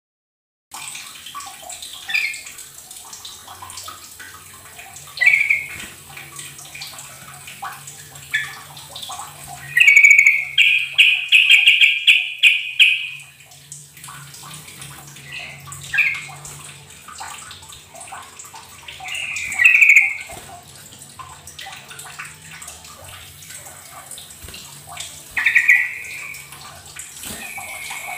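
Yellow-vented bulbul calling in short, bright phrases every few seconds, with one longer run of song about ten seconds in, over a steady background hiss.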